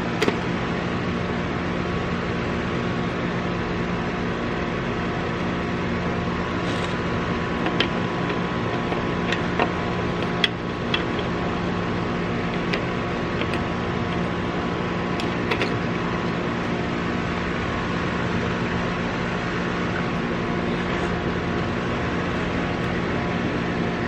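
Steady electrical hum of a running outdoor air-conditioning condenser unit, with a few light clicks of wire terminals being handled at the capacitor around the middle.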